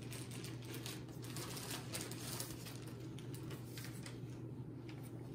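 Paper and wrapping being handled, a dense run of small crackles and rustles as a gift card or present is opened, over a steady low hum.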